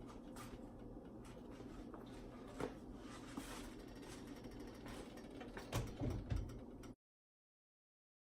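Quiet kitchen handling at the stove: scattered light clicks and knocks of utensils and seasoning containers over a steady low hum, with a couple of louder thumps about six seconds in. Just after that the sound cuts out completely.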